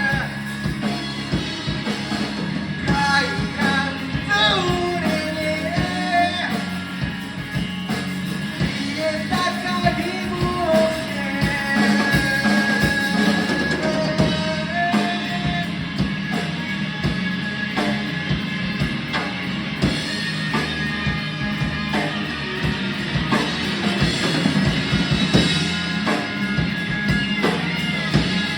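Rock song with singing over drum kit and guitar.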